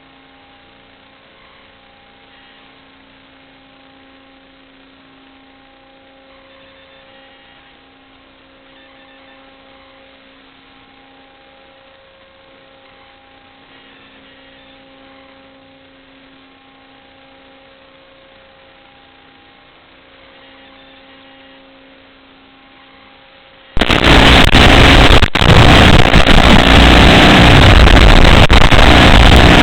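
A faint steady electrical hum with a few held tones, then about 24 seconds in a sudden jump to very loud FPV drone motor and propeller noise.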